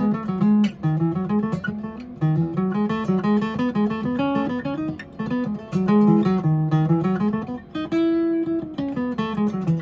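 Steel-string dreadnought acoustic guitar, a kit-built replica of a pre-war 1937 Martin D-28, being picked: a busy run of single melody notes moving up and down over bass notes, with a few held notes ringing.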